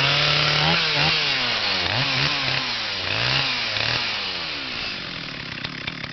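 Stihl 044 two-stroke chainsaw, intake mildly ported and muffler opened up, just started and being revved up and down in blips about once a second, easing a little quieter in the second half.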